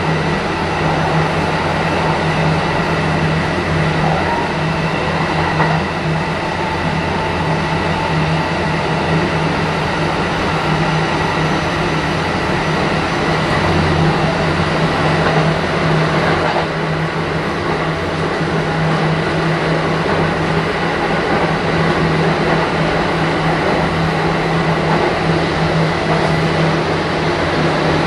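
Kintetsu 1420 series electric train running at speed, heard from inside the car: a steady rumble of wheels and running gear with a constant whine over it.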